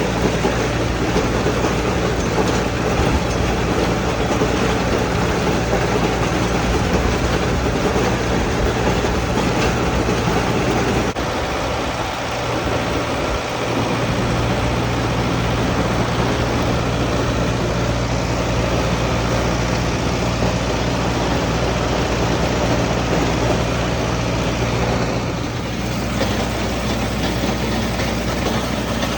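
Farm tractor engine running steadily while pulling hay equipment through the field, with a steady low hum. The low rumble drops away briefly about eleven seconds in and again near the end.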